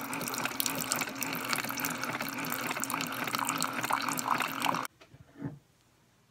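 A coffee maker's pump hums while a thin stream of coffee pours into a ceramic mug, filling it. The sound cuts off abruptly about five seconds in.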